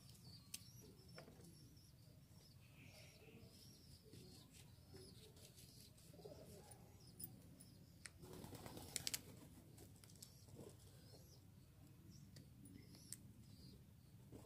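Near silence with faint birds chirping and a few scattered soft clicks and taps, the loudest a short cluster about nine seconds in.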